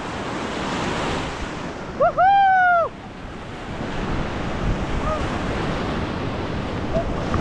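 Whitewater of a river rapid rushing around a raft, with wind buffeting the microphone. About two seconds in, a person lets out one loud held shout lasting under a second.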